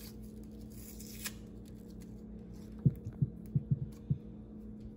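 A cardboard fireworks mortar tube being handled on a table: about six soft, low thumps close together about three seconds in, over a steady hum.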